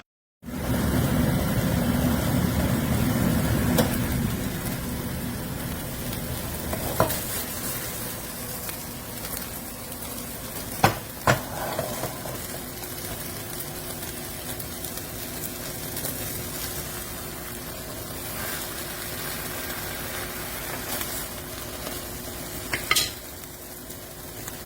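Eggs sizzling as they fry in a ceramic nonstick frying pan, a steady frying hiss that is loudest in the first few seconds and then settles. A few sharp taps come through, twice close together near the middle and once near the end.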